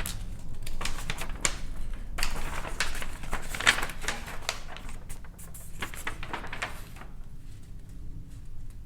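Paper rustling and crackling as a model kit's folded instruction sheets are handled, a run of quick crackles that dies down about seven seconds in.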